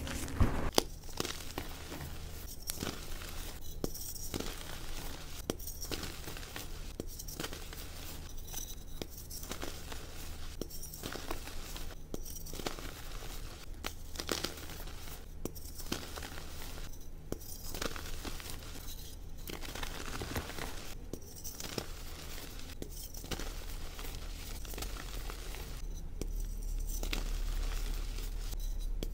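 Soft reformed gym chalk being crushed and squeezed in the hands: crumbly, powdery crunches repeating roughly once a second, with a few sharp crackles just under a second in.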